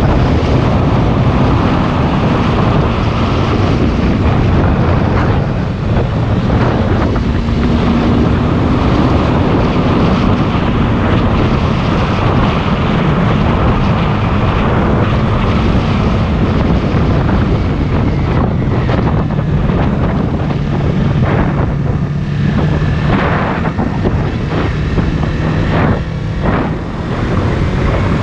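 Motorcycle engine running at riding speed under heavy wind noise on the microphone. The engine note drops lower in the second half and starts to climb again near the end.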